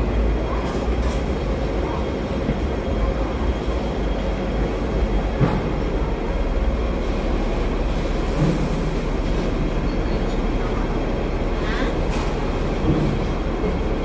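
Steady low rumble and hum heard inside a Hong Kong double-decker tram while it stands still at a tram signal, mixed with the noise of surrounding street traffic. A short hiss comes about eight and a half seconds in.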